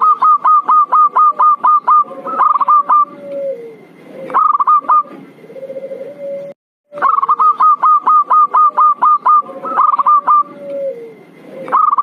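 Zebra dove (perkutut) calls played as a bird-trapping lure: a fast run of short, clipped coos, about seven a second, then shorter bursts, with lower drawn-out coos between them. After a brief cut-out about seven seconds in, the same sequence starts again, as a looped recording.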